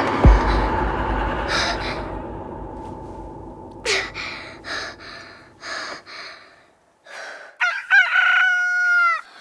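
A rooster crowing one long, held crow near the end. Before it, a deep low hit just after the start fades away over a couple of seconds, and a few short gasping breaths follow.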